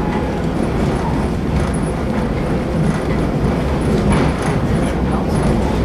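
Passenger train rolling along the track: a steady rumble of wheels and cars with occasional clacks, one sharper one a little after four seconds in.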